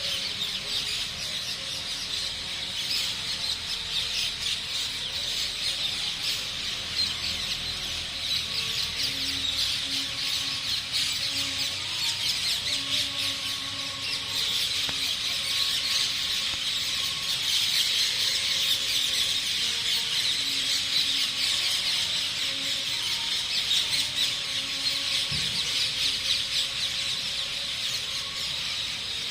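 A dense chorus of many birds chirping and squawking continuously, high-pitched and busy.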